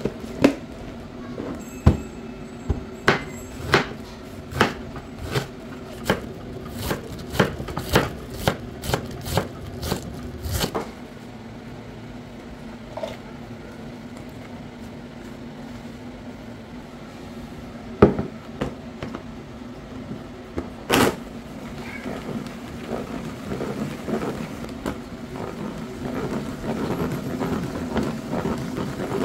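Kitchen work: a run of sharp knocks, about two a second for ten seconds, then two more single knocks, over a steady low hum.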